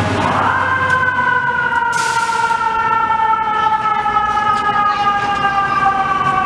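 Fire engine's siren winding up quickly at the start, then wailing slowly downward in pitch, with a short hiss about two seconds in.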